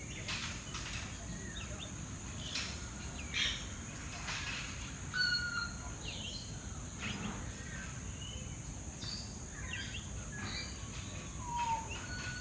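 Many birds calling at once: short chirps, whistled notes and sharp calls overlapping and scattered throughout, over a steady high hiss.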